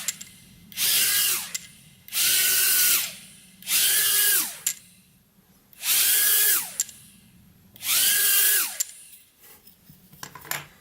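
Small ducted quadcopter's motors and propellers spinning up in about five short throttle bursts, each about a second long, with a whine that rises, holds and drops back. The drone is being run on a swapped-in one-cell Li-Po battery through its modified plug, showing that it powers the drone.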